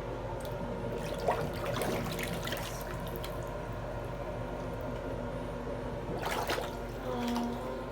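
Tap water running into a sink and splashing as a bleeding arm is rinsed under it.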